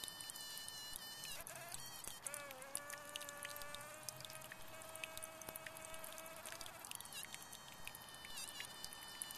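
Bumblebee buzzing: a high, thin whine that dips in pitch now and then, with a lower, steady buzz from about two to seven seconds in.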